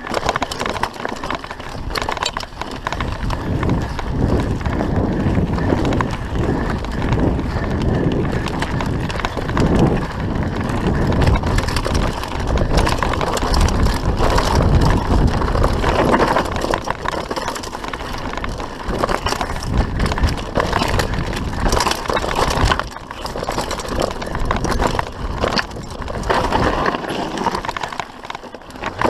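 Mountain bike descending a rough trail, recorded by a GoPro HD Hero3 riding along: the tyres rumble over dirt and stones and the chain and frame rattle, with frequent sharp knocks from bumps, over steady wind noise on the microphone.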